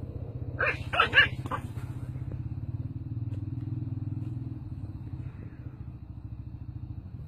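A small dog yaps four quick times about a second in, over a steady low, pulsing rumble that stops abruptly at the end.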